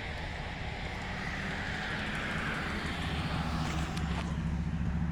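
Road traffic: a vehicle passing with a hiss that falls in pitch, then a low engine hum that grows louder near the end.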